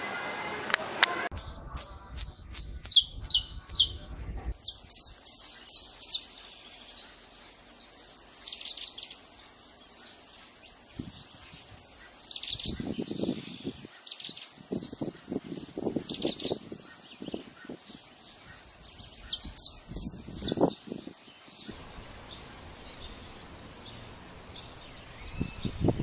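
Saffron finch singing: phrases of short, high, repeated chip notes, about three a second in the opening phrase, with pauses between phrases. A few low rumbles sit under the song in the middle.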